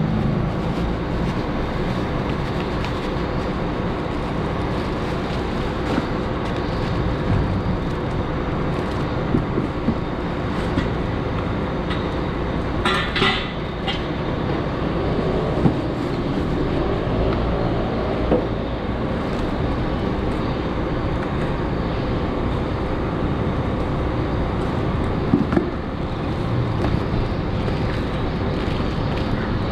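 A steady low rumble of background noise, with scattered light clicks and rustles from plastic-wrapped exhaust parts being handled in a cardboard box, and one brief brighter crinkle about thirteen seconds in.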